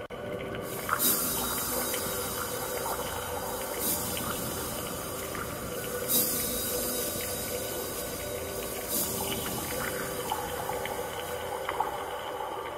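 Ambient electronic music: sustained synth tones under a soft wash, with broad noisy swells that rise and fade about every three seconds.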